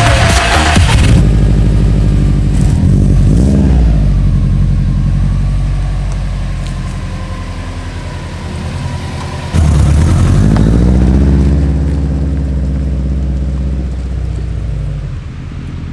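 FPV freestyle quadcopter's brushless motors and propellers running under changing throttle, heard from the drone itself. The pitch and loudness sag, then jump up suddenly as the throttle is punched about ten seconds in.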